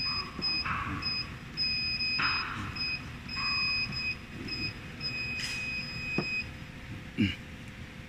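Touchscreen control panel's buzzer on a vial filling and crimping machine beeping as its buttons are pressed: a string of high-pitched beeps of uneven length, some held for a second or more while a button is held down. The beeping stops about six and a half seconds in, and a short knock follows near the end.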